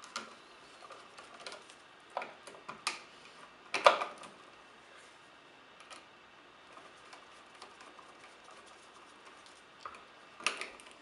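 Scattered light clicks and taps of tools and wires on an old wall light switch as its wires are taken off the terminal screws, with a sharper knock about four seconds in and another near the end.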